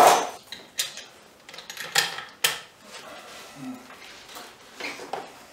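Light metallic clicks and knocks of a Savage 110 bolt-action rifle being handled and shifted back on its rifle rest, the sharpest two about two seconds in.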